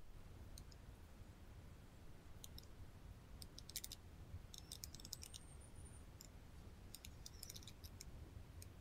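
Near silence broken by faint, scattered clusters of computer keyboard key clicks.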